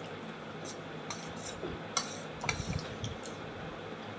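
A metal spoon scraping and clinking against a steel bowl while eating, with a few sharp clinks about halfway through, over a steady low hum.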